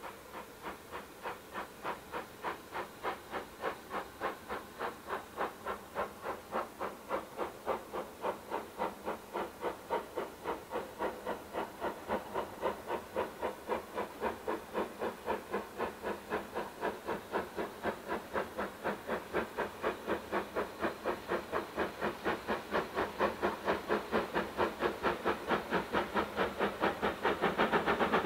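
Steam locomotive working a train as it approaches, its chimney exhaust beating in a steady rhythm of about two to three beats a second and growing louder as it draws near.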